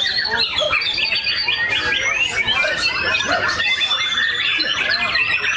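White-rumped shamas singing: a fast, unbroken stream of varied whistles, chirps and sweeping notes, several birds overlapping.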